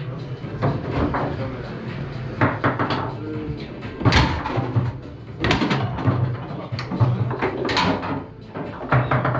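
Foosball table in play: sharp knocks and clacks of the ball striking the figures and table walls, the loudest about four, five and a half and nearly eight seconds in. Background music and voices run underneath.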